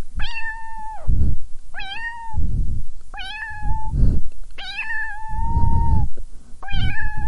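A cat meowing repeatedly: five drawn-out meows of level pitch, about one every second and a half, the fourth held longest. Loud bursts of low rumbling noise come between the meows.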